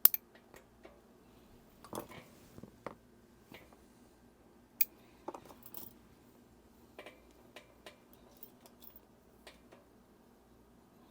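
Small tools and parts clicking and tapping against a plastic watch case while its buttons are worked out: scattered sharp clicks, the sharpest right at the start and a little under five seconds in.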